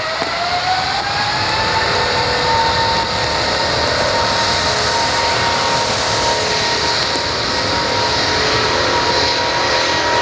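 An Airbus A380's four jet engines spooling up to take-off thrust as it begins its roll on a wet runway. The whine climbs in pitch over the first couple of seconds, then holds steady over a loud rushing noise.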